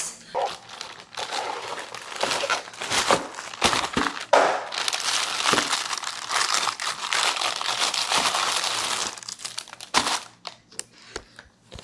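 Clear plastic food bag crinkling as it is handled, with many sharp crackles throughout, densest in the middle, and a sharp snap near the end.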